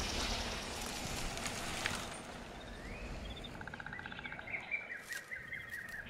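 Forest ambience: a rush of wind through leafy branches that dies away over the first two seconds, then small birds chirping and trilling, with a few light ticks near the end.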